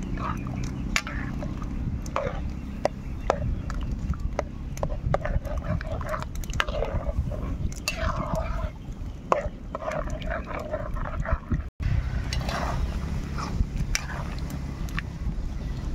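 A metal ladle stirs and scrapes through fish simmering in coconut milk in a metal pan over a wood fire, with frequent sharp clicks and knocks over a steady low rumble.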